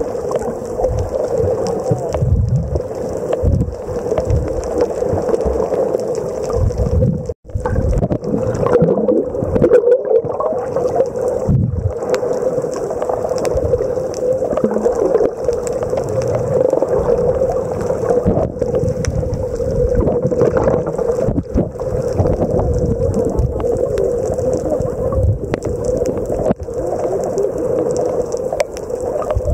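Steady, muffled water noise with irregular low thumps, like water heard underwater or close by.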